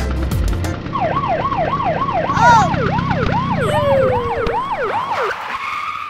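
Police siren sound effect: a fast yelp sweeping up and down about three times a second, starting about a second in and fading out near the end.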